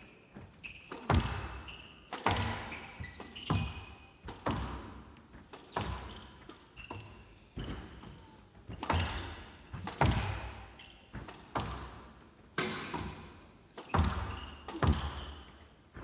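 A squash rally: the hard rubber ball cracking off rackets and the walls about once a second, each hit ringing on in a large hall. Court shoes squeak briefly on the wooden floor between shots.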